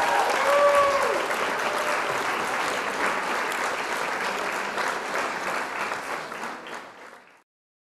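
Crowd applause and cheering, with a few whoops in the first second, fading away about seven seconds in.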